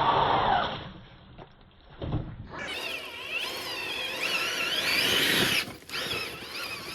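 Electric motor and gearbox whine of an RC crawler truck, rising and falling in pitch as the throttle changes, starting a few seconds in after an earlier steady noise fades away.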